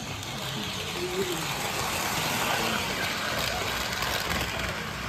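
Steady background din that swells a little in the middle, with faint distant voices.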